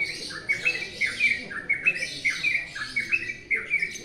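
Yellow-vented bulbul (trucukan) singing a fast run of short, bright notes, about four or five a second, many of them quick slurs, with higher chirping behind.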